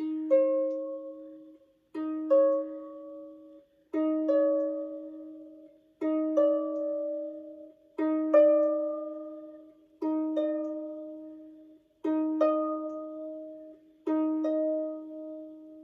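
Pedal harp strings plucked in pairs about every two seconds, eight times: a steady lower note, then a higher note that creeps up in pitch from pair to pair as the newly fitted gut string is tuned against it. Each note rings and dies away before the next pair.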